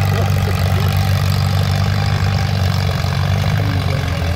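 Antique tractor engine running steadily at low speed, a deep, even drone.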